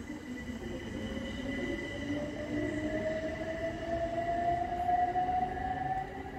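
Electric train pulling away, its traction motors whining in a tone that rises steadily as it gathers speed, over a low running rumble.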